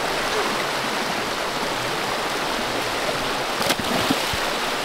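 A creek running: a steady rush of flowing water. A single sharp knock about three-quarters of the way through, with a few soft low thumps just after it.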